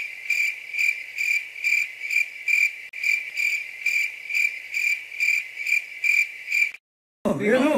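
Cricket chirping: a clean, high, even chirp repeated about two and a half times a second, cutting off abruptly about seven seconds in. The hard start and stop into dead silence mark it as an added cricket sound effect, the usual edit-room cue for an awkward silence.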